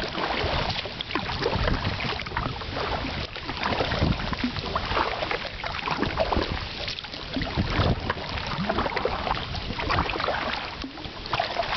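Paddles dipping and splashing river water around small homemade canoes built from plastic bottles, with wind buffeting the microphone.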